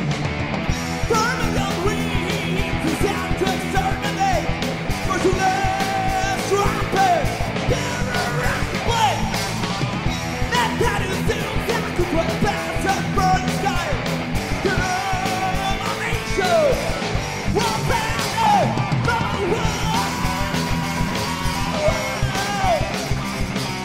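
Heavy metal band playing live: drums and electric guitars, with a sung and yelled vocal line on top.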